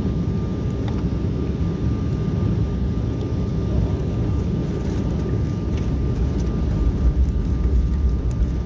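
Airliner cabin noise in flight: the steady low rumble of the jet engines and airflow heard from a window seat, with a faint steady whine above it.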